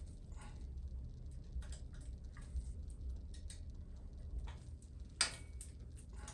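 Irregular light metallic clicks and ticks of hand tools and small engine parts being handled, with one sharper click about five seconds in.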